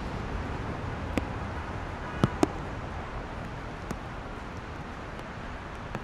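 Steady city traffic noise from cars on wet roads, an even hiss and rumble with no single vehicle standing out. A few sharp clicks break through it, the loudest a close pair about two and a half seconds in.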